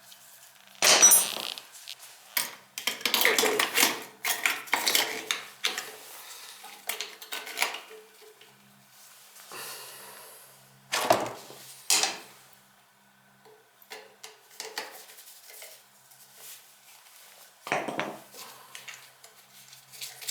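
Metal hand tools and parts clinking and clattering against each other, with scattered sharp knocks and scrapes. Three louder clanks stand out, about a second in, at about eleven seconds and near the end.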